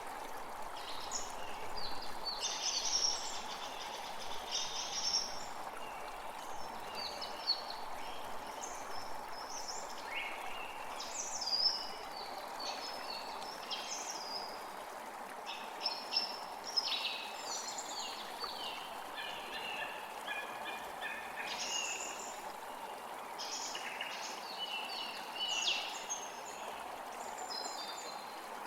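Creek water flowing steadily, with several songbirds singing and calling over it: short chirps and trills, often overlapping.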